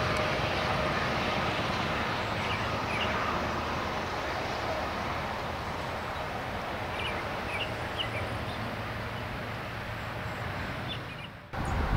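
Steady rumble of highway traffic, with a few faint, brief bird chirps about three seconds in and again around seven and nine seconds in.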